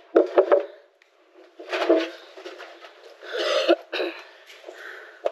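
Three quick knocks as a hammer is set down on a wooden table, followed by a few short, hissing noises.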